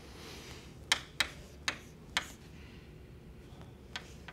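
Chalk on a blackboard as an equation is written: a brief soft scrape, then about five sharp, separate taps of the chalk striking the board.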